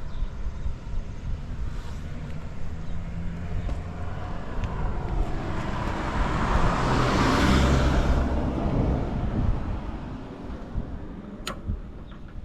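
Honda XL250S's single-cylinder four-stroke engine running, with a broad swell of noise that rises and falls over several seconds in the middle.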